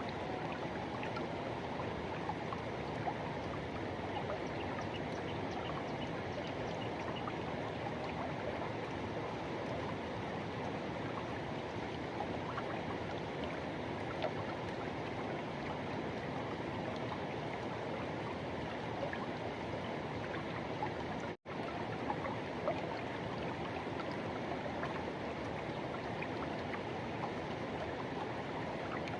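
Forest river rushing and flowing over rocks in a steady, even wash of water noise. The sound drops out for a split second about three-quarters of the way through.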